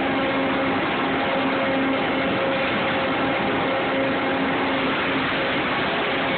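Sawmill edger running steadily: a dense, even mechanical noise with a constant low hum underneath.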